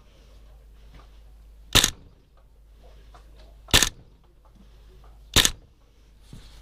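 Airsoft rifle firing three single shots, about two seconds apart, each a short sharp crack.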